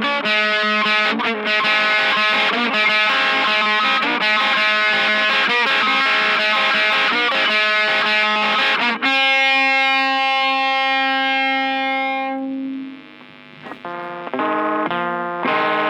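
Music on a distorted electric guitar: a busy run of notes, then a held chord that rings and fades out, before the playing starts again near the end.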